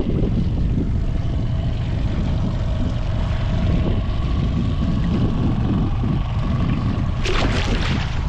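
A boat motor running steadily while trolling: a low rumble with a faint steady whine over it. A short hiss comes near the end.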